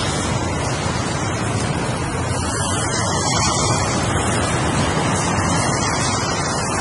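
Ocean surf: a continuous, steady wash of breaking waves with only gentle swells in loudness.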